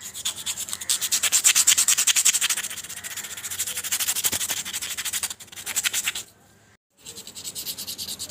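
Rapid back-and-forth rubbing of a cut cardboard star with an abrasive piece, about eight strokes a second, to roughen and smooth it. The strokes stop briefly about six seconds in, then start again.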